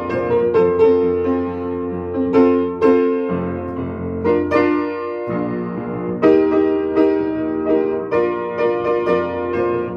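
Upright piano played with chords and a melody line in a steady rhythm, settling into a held chord for a couple of seconds about three seconds in before the playing picks up again.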